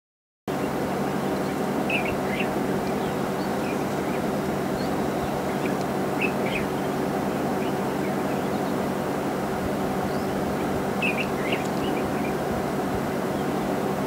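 A steady idling engine drone cuts in about half a second in. Over it come short high bird calls in pairs, repeated three times several seconds apart.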